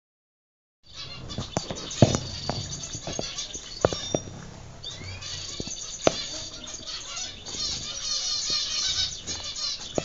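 Flock of zebra finches calling with many high, rapid chirps that grow busier near the end, along with wing flutters and several sharp taps, the loudest about two seconds in. The sound starts about a second in.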